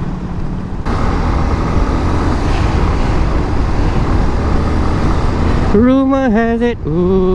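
Wind rush and road noise on a helmet-mounted mic while riding a motorcycle, with the engine's low drone beneath; the rush grows louder about a second in. From about six seconds in, a man hums a tune over it in short phrases.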